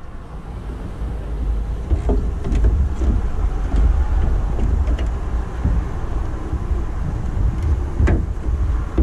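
Low, uneven rumble of wind on the microphone, with a few light clicks and knocks as a pickup's plastic tail light housing is pushed back into its pocket; the sharpest knock comes near the end.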